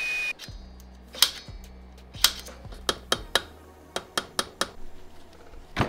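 A steady whine cuts off just after the start. Then comes a string of sharp metal knocks, spaced irregularly and closer together near the end: a pry bar wedged in a Nissan 300ZX cylinder head is banged against a table edge to knock the stuck camshaft seal loose.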